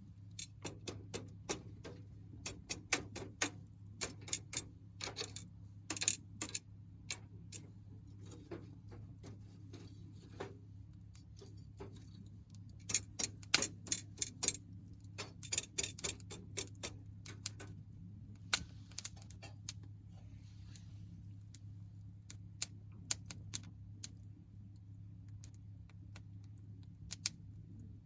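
Small wood fire crackling: irregular sharp pops and snaps from burning firewood, coming in busy flurries then thinning out, over a steady low hum.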